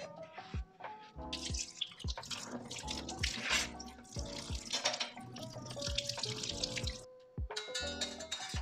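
Kitchen tap running into a stainless steel sink as a knife is rinsed under the stream, starting about a second in and cutting off about a second before the end. Background music with a steady beat plays throughout.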